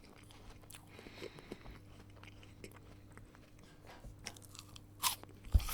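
Person eating a crisp raw apple: quiet crunchy chewing, then a loud crunching bite about five seconds in and another sharp crunch just after.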